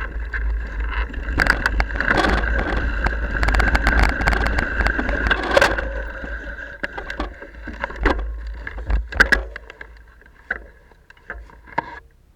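Mountain bike riding over rough singletrack: wind rumbling on the microphone, the tyres on the dirt and the bike rattling over bumps with many sharp clicks. It grows quieter about halfway through, leaving scattered clicks near the end.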